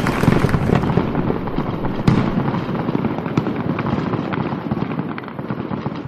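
Fireworks display: dense crackling with many sharp cracks and bangs, slowly dying away toward the end.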